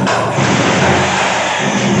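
Electric demolition hammer chipping wall tiles and plaster off a bathroom wall, running steadily with rapid blows.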